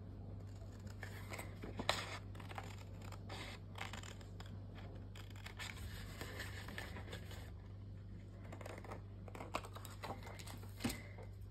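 Scissors snipping through a sheet of printed scrapbook paper in a run of irregular cuts, with the paper rustling as it is handled. The sharpest snips come about two seconds in and near the end.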